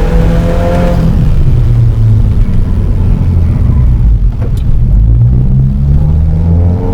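Subaru WRX's turbocharged boxer engine and exhaust under acceleration, heard from on board: the revs climb, drop about a second in, settle into a low rumble, and build again near the end.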